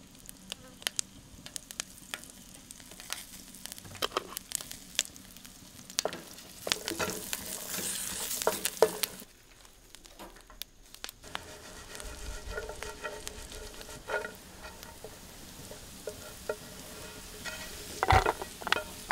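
Tropical almonds (badamier nuts) toasting in a little oil in a hot pan: sizzling, with many sharp clicks of nuts knocking on the pan as they are stirred with a wooden spatula. Near the end there is a loud clatter as the nuts are tipped out of the pan into a wooden bowl.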